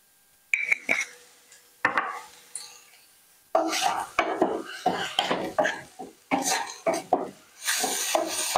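Wooden spatula stirring and scraping sautéing onions and mushrooms around a nonstick frying pan. A few sharp knocks in the first two seconds, then quick repeated scraping strokes from about three and a half seconds in.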